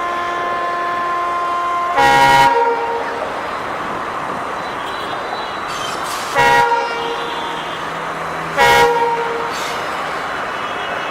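Indian Railways locomotive horn: a long steady note, then three short loud blasts about two seconds in, about six and a half seconds in and near nine seconds. Between the blasts runs the steady noise of a moving train.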